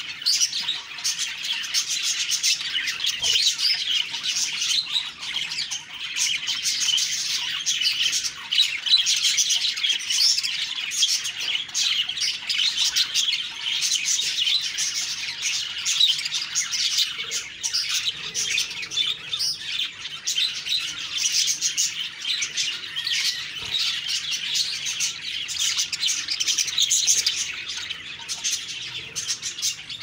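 A small flock of budgerigars chirping and warbling without pause, many quick notes overlapping.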